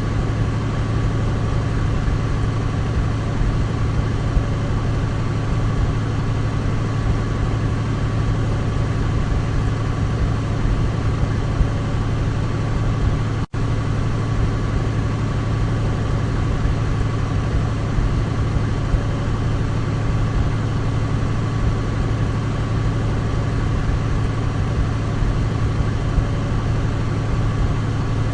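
Douglas DC-3's radial piston engines droning steadily at constant power, a deep even hum with a faint high whine above it. The sound cuts out for an instant about halfway through.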